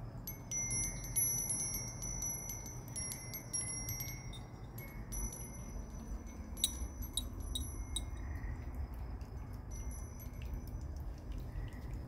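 Wind chimes ringing irregularly: short, high metal tones at several different pitches, struck one after another, over a low steady rumble.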